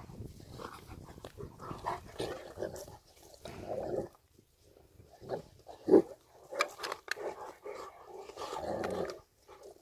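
Presa Canario dogs play-fighting, growling in irregular short bursts, with one louder short vocal sound about six seconds in.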